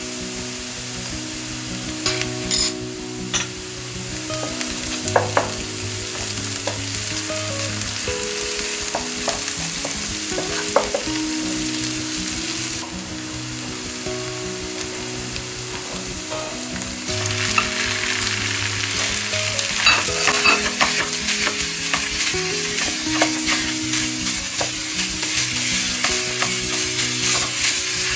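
Chopped onion and tomato paste sizzling in hot oil in a frying pan, stirred with a spoon that taps and scrapes against the pan now and then. The sizzle grows louder and the stirring busier a little past halfway.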